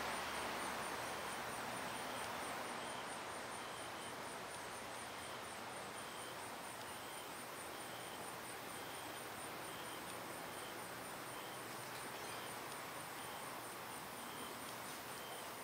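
Insects calling in the background: a steady, very high pulsing trill and short chirps repeating about once or twice a second, over a faint steady hiss.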